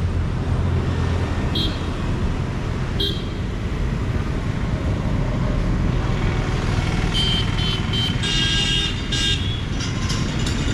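Steady road traffic: engines and tyres running past. Short vehicle-horn honks come twice in the first few seconds, then several in quick succession later on.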